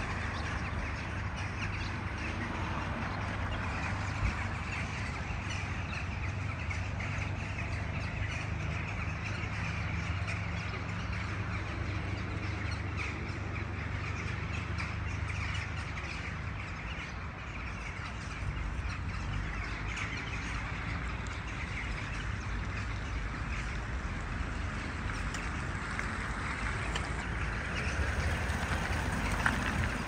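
A large flock of birds calling continuously, many calls overlapping into a dense chorus, over a steady low rumble.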